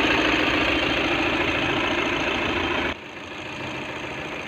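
Car engine idling steadily in an open engine bay. About three seconds in the sound drops suddenly to a quieter level and keeps running.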